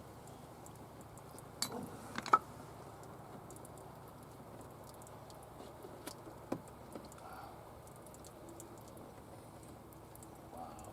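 Handling noises while working on a tractor's hydraulic filter: a few sharp clicks and knocks, the loudest about two seconds in, over a faint steady background.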